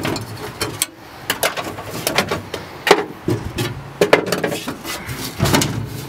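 Irregular knocks and clatter of a socket on an extension and hand tools against the ribbed steel top of a car's gas tank as the tank's mounting screws are worked loose.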